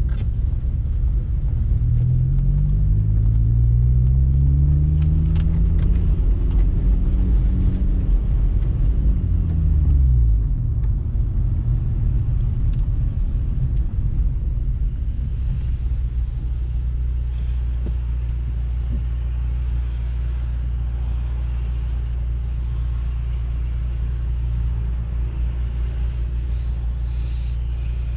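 2012–2015 Honda Civic Si's 2.4-litre four-cylinder breathing through a K-Tuned 3-inch cat-back exhaust, heard from inside the cabin. The exhaust note rises in pitch as the car accelerates, falls about ten seconds in as it slows, then settles into a steady low idle drone.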